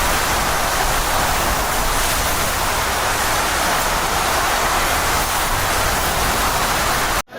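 Steady, dense rushing noise of water, such as heavy storm rain or a torrent, cutting off abruptly near the end.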